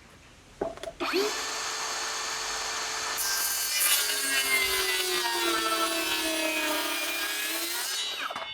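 Mellif 18-volt brushless cordless circular saw starting up with a whine, then cutting through a wooden board. Its pitch sags slightly under load during the cut before it winds down near the end.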